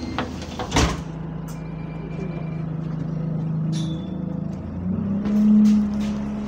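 Bus engine moaning, heard inside the passenger saloon: a steady low drone that steps up in pitch and gets louder about five seconds in as the bus pulls harder. The bus is running in limp mode, with a sharp knock just under a second in.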